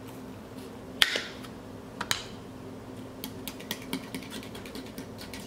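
A plastic squeeze bottle of mayonnaise spurts twice with a sharp hiss as it is squeezed. From about three seconds in, a spoon clinks and scrapes quickly against a glass bowl as the sauce is stirred, over a faint steady hum.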